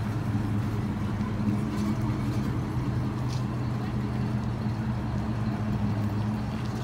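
A car engine running at low, steady revs: a deep, even rumble with no revving.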